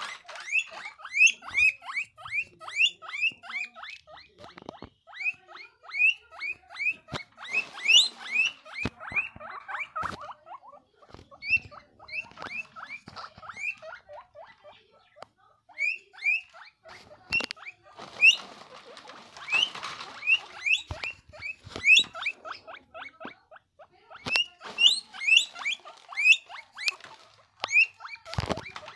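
Guinea pig wheeking: long runs of short, high, rising squeals, about two to three a second, in bouts with brief pauses. This is the excited call of a happy guinea pig.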